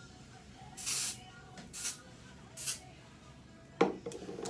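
Aerosol dry shampoo sprayed onto hair in three short hissing bursts, followed by a sharp knock near the end.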